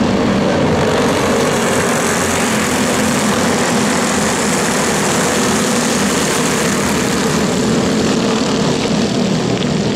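Racing go-kart engines running on track, a loud steady drone of several overlapping engine tones.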